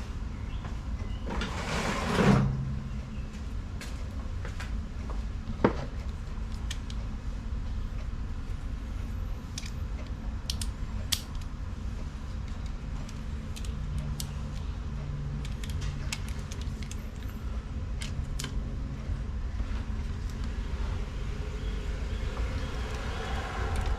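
Workshop handling noise over a steady low rumble: one loud scrape that falls in pitch about two seconds in, then a sharp click and scattered light metallic clicks as hand tools are picked up and fitted.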